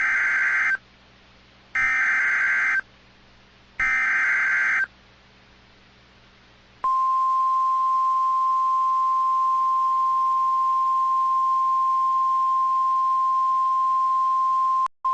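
NOAA Weather Radio alert signalling: the SAME digital header sent three times as short buzzing data bursts, each under a second with about a second's pause between. Then a steady single-pitch 1050 Hz warning alarm tone starts and holds, with a brief dropout near the end.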